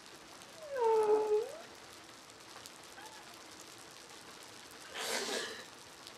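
A single drawn-out whining vocal cry about a second in, dipping then rising in pitch at the end, followed near the end by a short breathy rush of noise.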